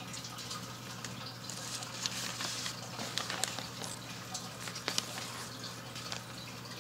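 Crinkling and rustling of a plastic bag and paper being handled, with a few sharp clicks, over a steady low hum.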